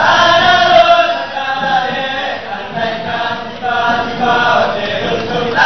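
A group of men chanting together in unison, a sung chant of short phrases with brief breaks between them.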